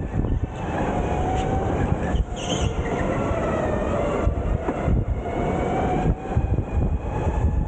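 Onboard sound of an electric go-kart driven at speed: the drive motor's whine rising and falling with speed over a heavy rumble of vibration and road noise. A brief high squeal comes about two and a half seconds in.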